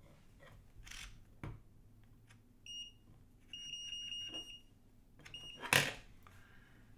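Digital multimeter beeping: a short high beep, a longer beep of about a second, then another short beep, among clicks of the meter being handled. A sharp knock near the end is the loudest sound.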